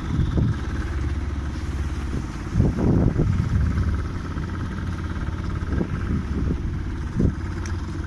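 A motorboat engine running steadily with a constant drone, and a few low thumps over it.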